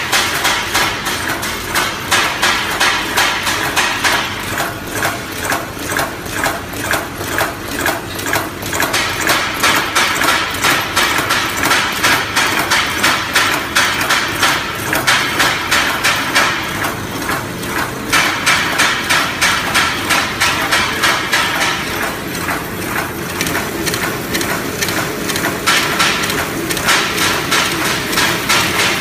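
Horizontal flow-wrap packing machine for plastic forks running, its chain-driven infeed lugs, film feed and sealing jaws making a fast, even, repeating clatter of knocks.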